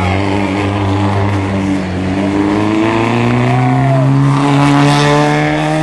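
Peugeot 106 rally car's four-cylinder engine pulling hard, its pitch climbing steadily through the second half as the car accelerates.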